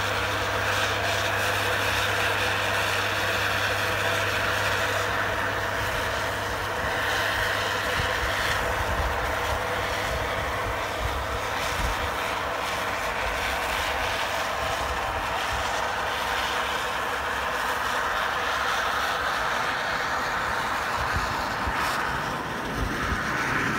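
Caterpillar 950M wheel loader's diesel engine running steadily under load while it plows snow with its front blade and side wing.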